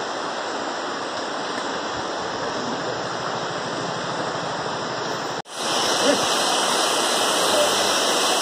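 Steady rush of running water, coming back louder after an abrupt cut about five and a half seconds in.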